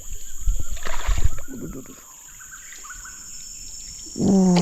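Steady high-pitched insect drone of jungle crickets, with thumps and rustling in the first second and a half and a short, loud vocal sound falling in pitch near the end.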